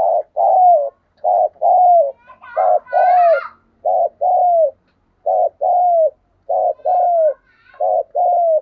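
Spotted dove cooing: seven two-part coos, each a short note followed by a longer falling note, repeated about once every second and a quarter.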